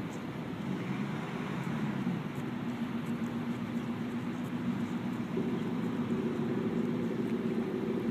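A car engine running steadily at the start line with a low hum; about five seconds in the revs step up and hold at a higher pitch.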